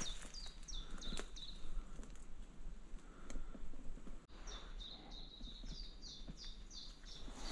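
A small songbird singing runs of short, high chirps, each falling in pitch, about four a second, breaking off partway and starting again. A single footstep sounds about a second in.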